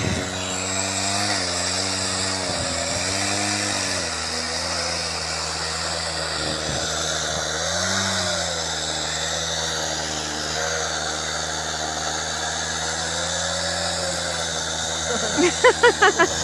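Two-stroke chainsaw running while cutting a hole in river ice, its engine pitch dipping and recovering several times as the chain bogs in the ice. A quick run of pulses comes near the end.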